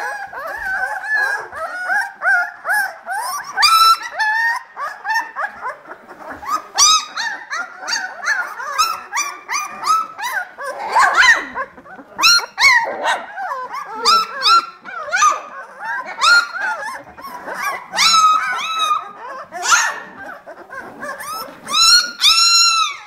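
A litter of 18-day-old Hungarian vizsla puppies whining, squeaking and yipping, many short high calls overlapping one another. Near the end comes one louder, longer cry that rises and falls.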